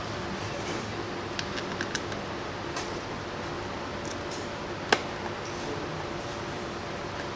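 A few scattered light clicks and taps of screws and a screwdriver as the cover's four screws are fitted, with one sharper click about five seconds in, over a steady background hum.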